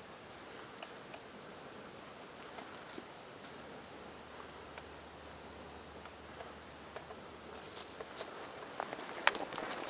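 Crickets and other insects chirring steadily, with scattered soft clicks of footsteps that grow louder and closer together near the end.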